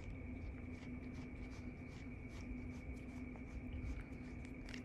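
Soft, faint scratchy strokes of a brush being drawn through a long-haired cat's fur, irregular and several a second, over a steady faint hum.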